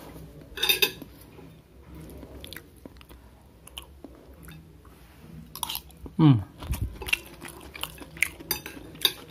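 Metal fork and spoon clinking and scraping on a ceramic plate of rice and vegetables, in scattered short clicks, with chewing between them. About six seconds in comes one short low sound that falls in pitch.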